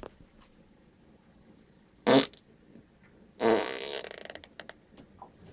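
Two loud farts: a short, sharp one about two seconds in, then a longer one about a second later that tails off.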